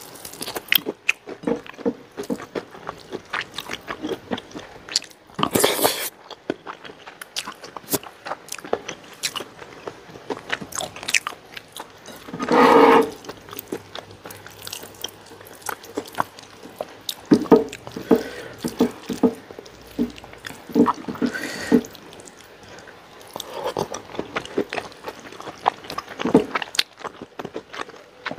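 Close-miked chewing and biting of crispy fried chicken with rice and greens: frequent wet mouth clicks and crunches. A short louder rush of noise comes about a third of the way in, and another about halfway through.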